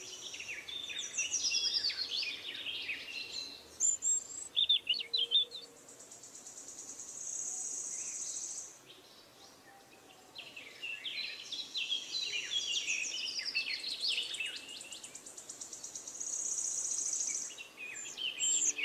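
Birds chirping in quick runs of notes, with a high, buzzing insect trill that comes and goes between the bursts of birdsong.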